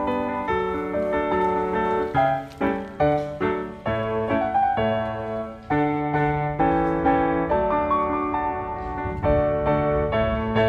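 Background piano music, notes and chords played one after another.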